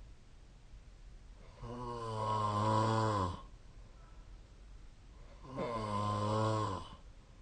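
A sleeping person snoring: two long, low, buzzing snores about four seconds apart, each lasting a second or more, with quieter breathing gaps between.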